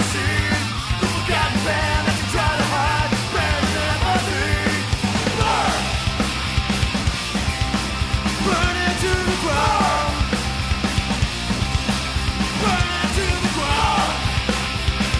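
Background music: a fast rock song with a steady drum beat, distorted guitars and shouted vocals.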